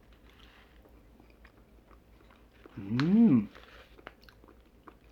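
A man chewing a mouthful of food with faint clicky mouth sounds. About three seconds in comes a short, loud "mmm" hum of approval that rises and then falls in pitch.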